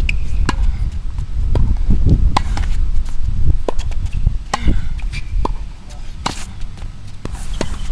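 Tennis ball struck by rackets in a rally on a hard court: repeated sharp pops of ball on strings, roughly a second apart.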